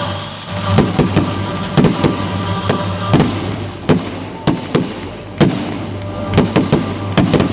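Fireworks going off in a rapid, irregular string of sharp bangs and crackles, with music playing underneath.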